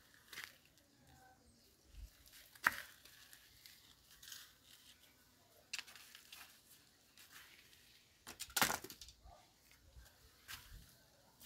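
Scattered faint rustles and crackles, with a sharp click a few seconds in and a louder, longer rustle about three quarters of the way through.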